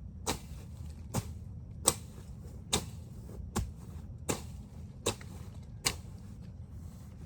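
Rhythmic strokes of a hand tool cutting down weeds and bush, eight sharp cuts about one every 0.8 seconds, each with a brief swish.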